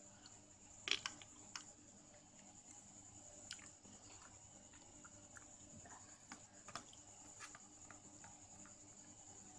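Faint wet squishing of fingers mixing rice and tamarind gravy in a stainless steel bowl, with a few soft clicks as the fingers touch the metal; the sharpest click is about a second in. A faint steady high-pitched whine runs underneath.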